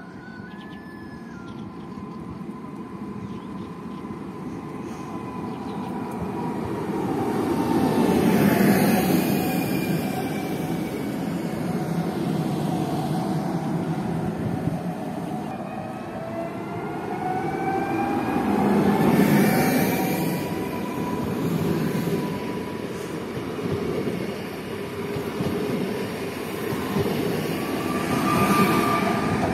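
A 45WE electric multiple unit comes into the platform and pulls away. Its motor whine falls in pitch as it slows, then climbs again from about halfway through as it accelerates. Wheel and bogie rumble swells as the cars go past.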